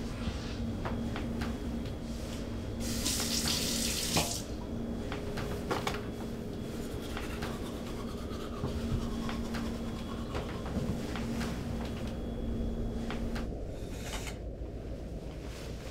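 Kitchen tap turned on, water gushing into the sink for about a second and a half, with small knocks and clatter of things being handled at the sink. A low steady hum runs underneath and stops near the end.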